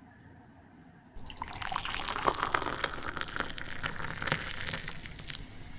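Chilled fizzy cola poured into a glass tumbler, a splashing pour with dense fizzing crackle that starts about a second in and tapers off near the end.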